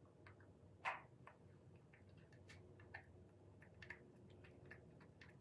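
Near silence with about a dozen faint, scattered light clicks and taps, the loudest about a second in: a small plastic scale-model engine being handled and touched with a paintbrush.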